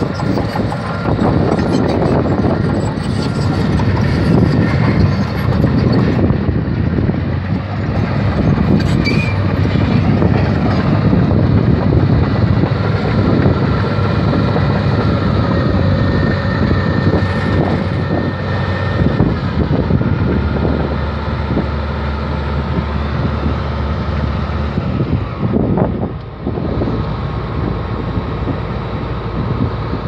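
Komatsu D155A crawler bulldozer running close by: its diesel engine is loud and steady, and its steel tracks clank as it works the sand.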